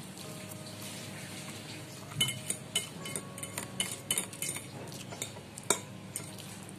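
Cutlery clinking and scraping against a dish while eating instant noodles with rice, in a quick run of clicks in the middle and one sharper clink near the end.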